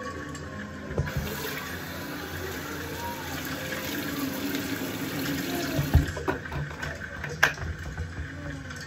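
Bathroom sink tap running into the basin for about six seconds, starting about a second in, with a few sharp knocks near the end.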